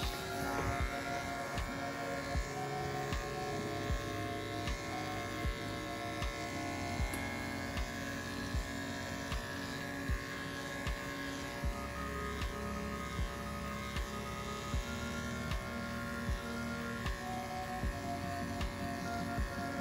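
Background music with a steady beat, over the steady buzzing hum of corded electric dog-grooming clippers running through a dog's coat.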